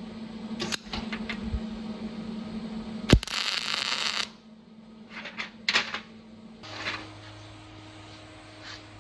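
MIG welding a bolt: a sharp click about three seconds in, then the arc crackles for about a second. A few metallic clicks from the welding ground clamp and bolt being handled follow, over a steady machine hum.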